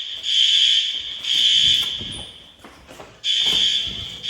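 Loud school fire alarm sounding in the temporal-three evacuation pattern: three harsh, buzzing high-pitched blasts about a second apart, a pause of just over a second, then the next round starting near the end.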